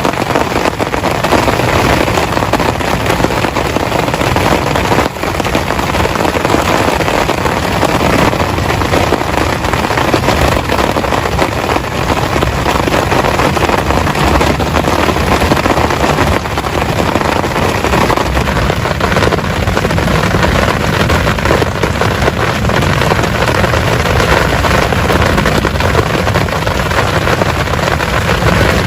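Heavy rain falling steadily, a loud, dense patter of drops striking a close surface.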